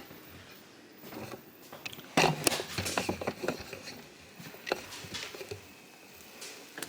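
Irregular knocks and clicks of things being handled, densest about two to three and a half seconds in, with a few single knocks after.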